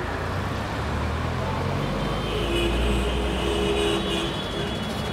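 Street traffic noise: a motor vehicle's engine rumbling low and steady, swelling about two to four seconds in.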